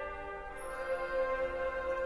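Symphonic wind band playing sustained chords, moving to a new held chord about half a second in.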